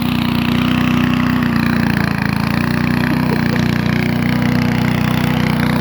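Lawn mower engine running steadily and evenly, held running after a spell of refusing to start.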